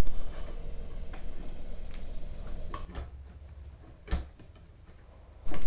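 Light metal clicks and knocks as the two halves of a hydro-boost brake booster are handled and pressed together, with one sharper knock about four seconds in.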